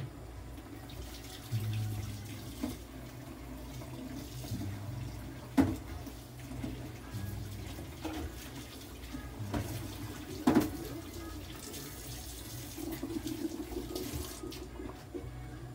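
Running water from a tap under a low on-off hum, with two sharp knocks about five and a half and ten and a half seconds in.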